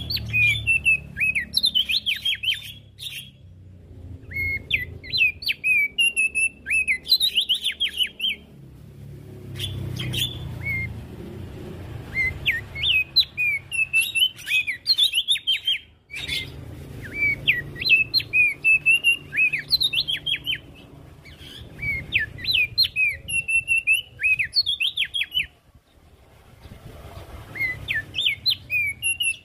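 Javan grey-throated white-eye (opior jambul) singing: about six bursts of rapid, high chirping phrases, each a few seconds long with short pauses between them, over a low rumble.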